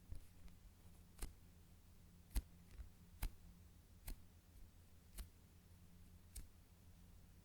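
Slow-rising foam chocolate-bar squishy toy being handled: about six faint, sharp clicks or taps, roughly one a second, over quiet room tone.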